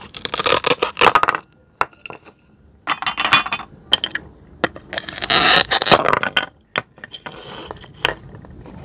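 Plastic toy knife cutting apart toy play-food fruit pieces joined with hook-and-loop (Velcro) strips on a plastic cutting board: four rasping tears, the longest about five seconds in, with light plastic clicks between them.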